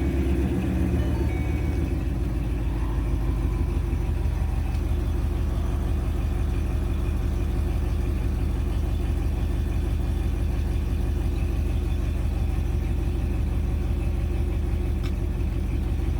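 2012 Ford Mustang Boss 302's 5.0-litre V8 idling steadily, freshly restarted after its PCM keep-alive memory was cleared and crank and misfire relearns were done. The owner is watching for the random misfires that had kept setting P0300 codes.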